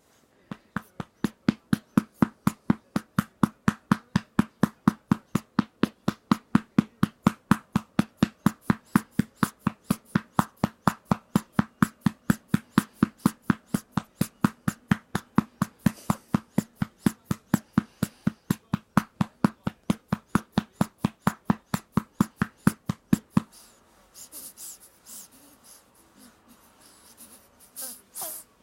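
A hand patting a baby's back to bring up a burp: steady, even pats at about three a second, which stop about 23 seconds in. Quieter scattered small sounds follow.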